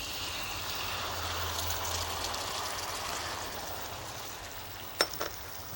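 Tomatoes sizzling in hot olive oil in a saucepan: a steady hiss that slowly dies down, with a couple of sharp clicks about five seconds in.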